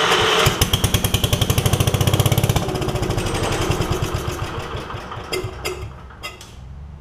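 Kohler engine of a Gravely 5665 being cranked over. It gives a rapid, even chugging for a couple of seconds, then slows and dies away with a few last knocks without running. It fails to start because the fuel pump's lines turned out to be hooked up backward, starving the carburettor.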